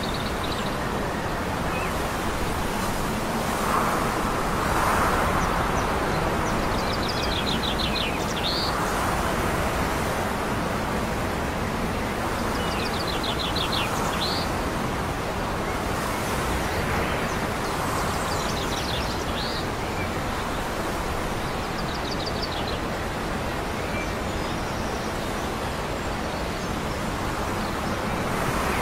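A steady wash of outdoor noise from wind and distant traffic, with a small bird singing a short, fast, high trill four times, each phrase ending in a rising note, about every four to five seconds.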